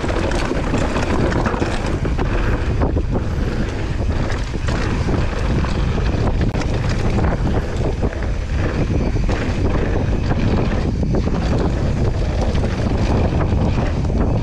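Wind buffeting the microphone over the rumble of a mountain bike riding down a dirt trail, with many small clicks and knocks from the tyres and bike.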